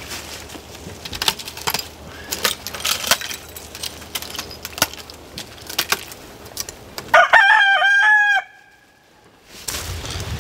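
Rooster crowing once, a loud call a little over a second long about seven seconds in. Before it, a run of light clicks and rustles.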